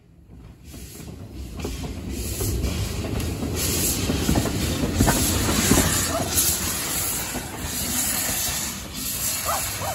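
Steam locomotive W11, an LB&SCR Terrier 0-6-0 tank engine, coming in close by: steam hissing and wheels clattering over the rails. It fades in over the first couple of seconds, then stays loud.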